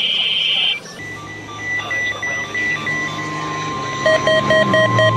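Edited weather-radio emergency alert signal tones. A buzzing data-burst tone cuts off under a second in, followed by layered electronic beeps: a steady tone enters about halfway, and rapid pulsing beeps come in near the end.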